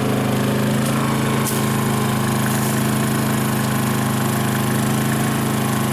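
Portable generator's small engine running at a steady speed, an even hum that does not change.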